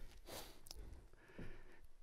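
Near silence: faint room tone during a pause in a man's speech, with a soft breath and a small click.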